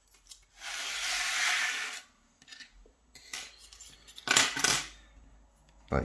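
Handling of a metal lock cylinder: a rubbing scrape lasting about a second and a half, then a few sharp metallic clicks and clinks, the loudest about four and a half seconds in.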